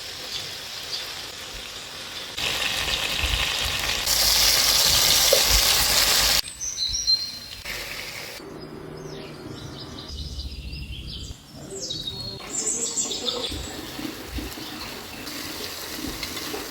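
Food sizzling in a hot pan, getting louder in abrupt steps and cutting off suddenly about six seconds in. After that, birds chirp now and then over quieter background sounds.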